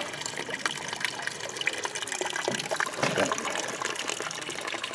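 Spring water running and trickling at a small spring-fed well, a steady wash of water with many small irregular splashes.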